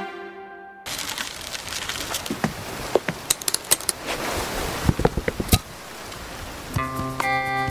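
A quick, irregular run of sharp clicks and clinks over a steady background hiss, dying away after about five seconds.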